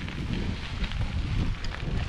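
Wind buffeting the microphone: an uneven low rumble with a faint hiss above it.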